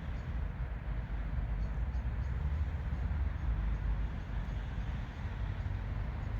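Road traffic: a steady low rumble with no single passing vehicle standing out.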